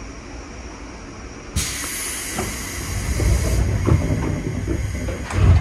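Air hiss starting suddenly about a second and a half in, then a growing rumble with several clunks and a heavy thud near the end, from a JR 201 series electric commuter train standing at the platform as its pneumatic doors close before departure.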